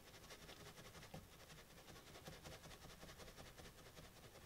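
Faint, quick rubbing strokes of a cotton swab working polish over the cam of a Glock 17 trigger bar, smoothing the contact surface to take the grit out of the trigger pull.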